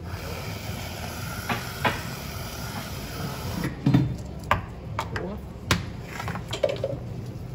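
Aerosol can of whipped cream spraying with a steady hiss for about three and a half seconds, then cutting off suddenly. A few sharp clicks and knocks follow.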